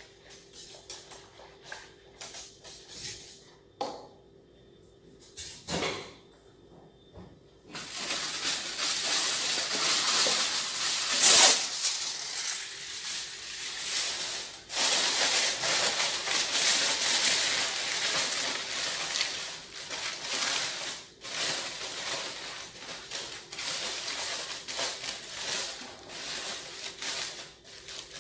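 Aluminium foil crinkling and rustling as it is pressed down over the rim of a cooking pot; the dense crackle starts about eight seconds in and is loudest a few seconds later. Before that, only light clicks of handling.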